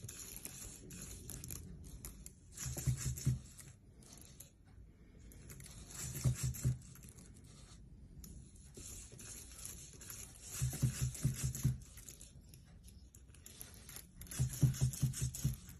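EMO desktop robots walking on tissue paper: four short bursts of quick little steps, their feet crinkling the paper.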